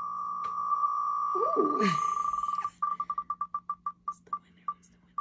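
An online spinner wheel's tick sound plays from a MacBook Pro. While the wheel spins fast the ticks blur into one steady beep, then about two and a half seconds in they come apart into separate ticks, slowing and spreading out as the wheel comes to rest.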